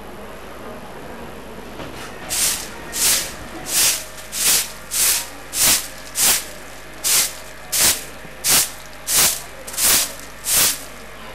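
Short-handled bundle broom of thin stalks sweeping paving stones: thirteen even swishes, about one every 0.7 seconds, starting about two seconds in.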